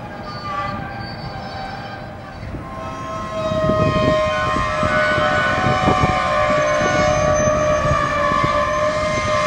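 Freight cars' steel wheels squealing against the rails as they roll slowly on curved track, several high tones held and wavering, over the rumble and knocking of the cars. The squeal grows much louder about three and a half seconds in.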